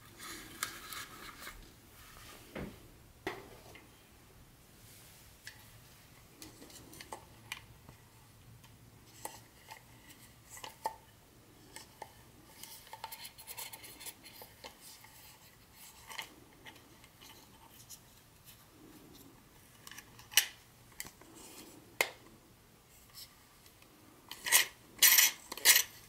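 Handling noise of a plastic O-gauge toy locomotive and tender in cloth-gloved hands: light clicks, taps and rubbing of hard plastic and packaging, with a few sharper clicks and a quick run of the loudest ones near the end.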